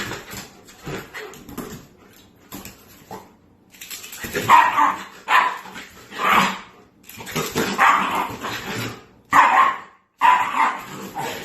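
A dog barking in a series of short, loud barks about a second apart, becoming louder and more frequent about four seconds in.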